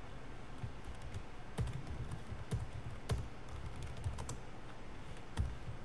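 Typing on a computer keyboard: irregular keystrokes at an uneven pace, with short pauses between them.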